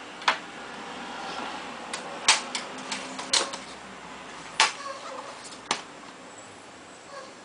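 Sharp, irregular clicks and taps of a small screwdriver and tiny screws against the metal screen frame of a laptop, about five loud ones among smaller ticks.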